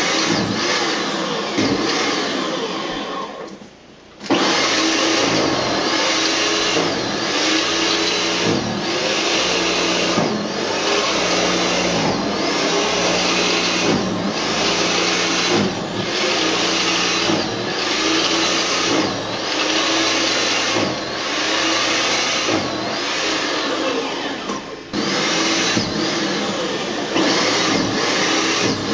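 Gasoline snowblower engine running steadily, its pitch wavering, with louder swells at a regular beat about every second and a half. The sound drops out briefly about four seconds in.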